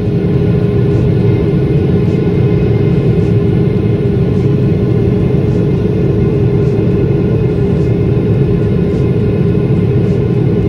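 Jet airliner cabin noise heard from a window seat: the steady, loud roar of the turbofan engines and rushing air, with a constant low hum under it.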